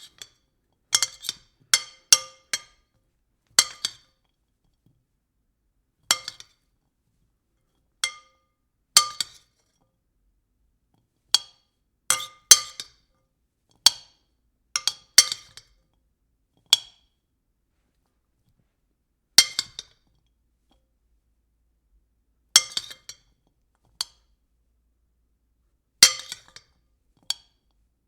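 A spoon striking a bowl: sharp clinks that ring briefly with the bowl's tones. They come as scattered single strikes and quick clusters of two or three, with silent gaps of a second or more between.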